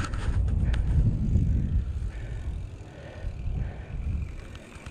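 Wind buffeting the camera microphone: a low, gusting rumble, loudest in the first two seconds and easing off, with a few sharp clicks near the start.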